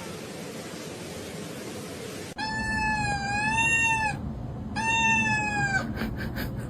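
A cat giving two long meows, the first wavering and about a second and a half long, the second shorter and falling at its end. A steady hiss comes before them.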